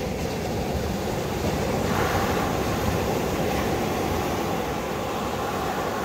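Ocean surf breaking and washing on a beach, a steady rush of water with a louder surge of surf arriving about two seconds in.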